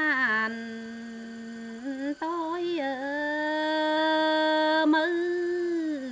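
A woman singing a Tày lượn cọi folk melody solo and unaccompanied, in long held notes joined by sliding ornaments, with a short break about two seconds in.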